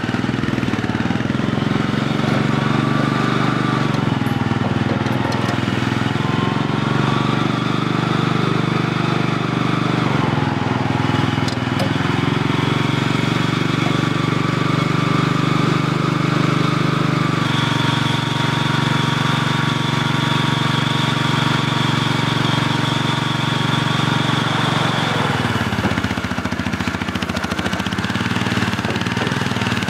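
Small loader's engine running under load, its speed rising and falling several times as the machine works. A high steady whine joins for several seconds past the middle, and the engine speed drops sharply near the end.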